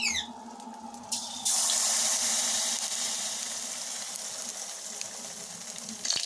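Banana paniyaram batter frying in hot oil in a metal pan: a loud sizzle that starts suddenly about a second and a half in and slowly fades.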